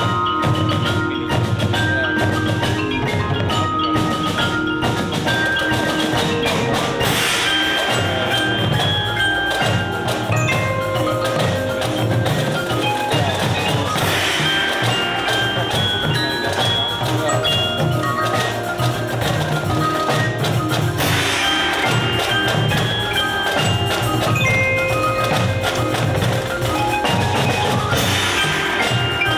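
Marching show band music: percussion and mallet instruments play a melody of short, ringing notes over a steady low rhythmic pulse.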